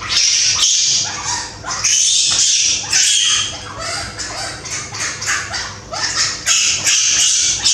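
Baby monkey crying in fear: a string of loud, high-pitched shrieks, one after another about once a second.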